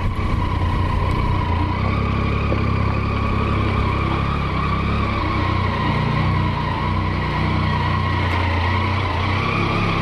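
Triumph motorcycle engine running steadily at low speed while the bike is ridden slowly, with no sharp events.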